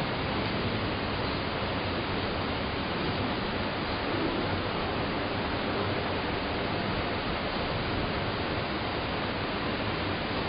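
A steady, even hiss like static, with no speech.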